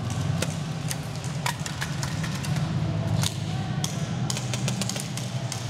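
Airsoft guns firing during a close-quarters game: scattered sharp clacks and snaps at irregular intervals, some in quick runs, over a steady low hum.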